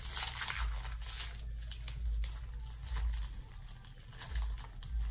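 Foil wrapper of a Pokémon trading-card booster pack crinkling in irregular bursts as it is torn open and handled.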